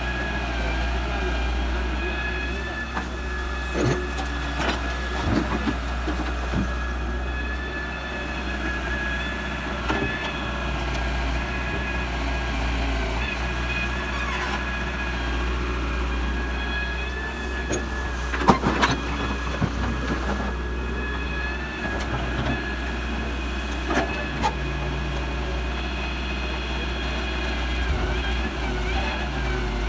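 Excavator's diesel engine running steadily with a deep rumble and a steady high hydraulic whine, broken by scattered clanks and knocks, the loudest cluster about two-thirds of the way through.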